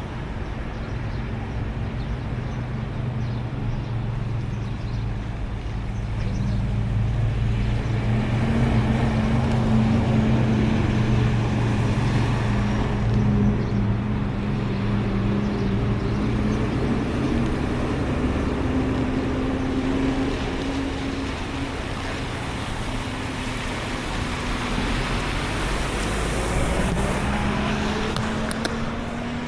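Road traffic close by: a vehicle engine hums steadily with a slowly drifting pitch over the wash of passing tyres.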